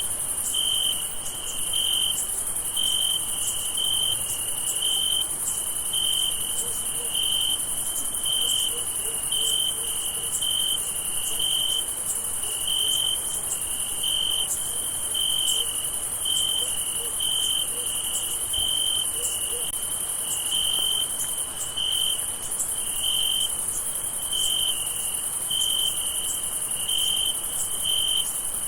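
Crickets chirping at night: one cricket's clear chirp repeats in an even rhythm, about one to two chirps a second, over a steady high-pitched drone of many more crickets.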